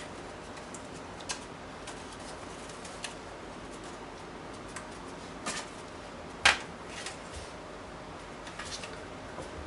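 Steady low hiss of room tone with scattered small clicks, and one sharper click about six and a half seconds in.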